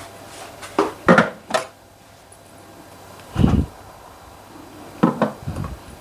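Kitchen clatter of pots and utensils: a few sharp knocks and clinks, a duller heavier thud about three and a half seconds in, then more clicks near the end.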